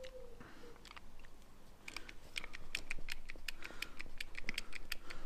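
Hand hydraulic crimping tool clicking as a cable lug is set in its jaws: a quick, uneven run of light mechanical clicks that starts about two seconds in.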